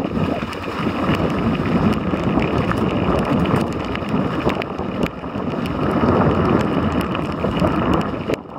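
Wind rushing and buffeting over the microphone during a ride, with scattered knocks and rattles.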